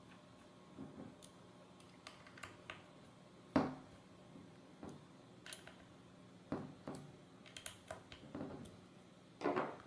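Small screwdriver driving screws to fix a motor to a plastic robot-car chassis plate: light, irregular clicks and taps of the screwdriver, screws and parts being handled, with a sharper knock about three and a half seconds in and a few quick taps near the end.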